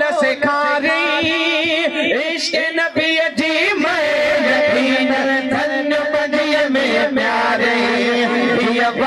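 Two men singing a hamd, a devotional hymn in praise of God, through microphones. The voices waver in quick ornamented runs through the first few seconds and settle into a long held note near the end.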